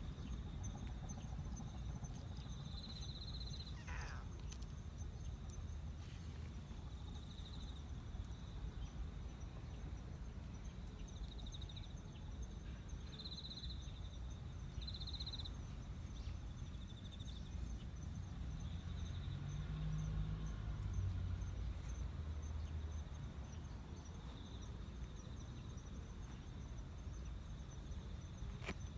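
Outdoor ambience: insects chirping in short high bursts every few seconds over a steady high drone and a low background rumble.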